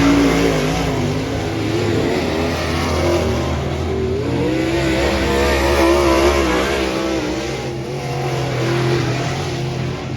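Dirt modified race car engine under racing load, its pitch rising and falling again and again as it is throttled on and off through the corners.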